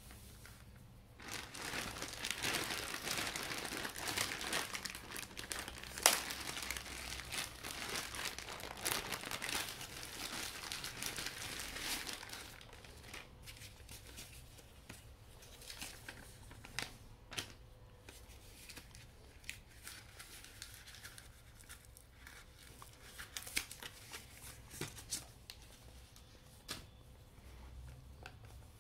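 A plastic courier mailer bag being cut, torn open and crinkled for the first ten seconds or so, with a sharp snap about six seconds in. After that, quieter handling of paper and a cardboard box, with scattered light taps.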